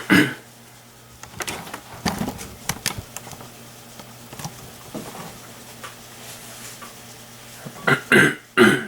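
A person coughing: once at the start and several times in quick succession near the end, over a faint steady low hum, with scattered light clicks in between.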